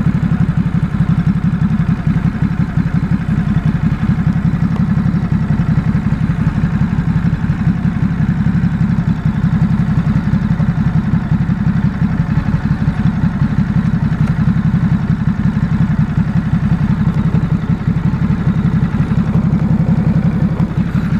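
Stock 2018 Ducati SuperSport S, its 937 cc L-twin engine idling steadily with an even, low pulse.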